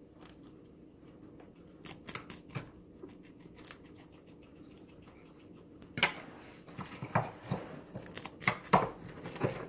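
Guinea pig crunching a fresh celery stalk held out by hand, with crisp snapping bites. The bites come sparsely at first, then faster and louder from about six seconds in.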